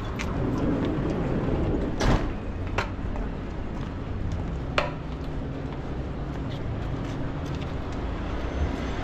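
City street ambience: a steady low rumble of traffic, broken by three short sharp knocks about two, three and five seconds in, the first the loudest.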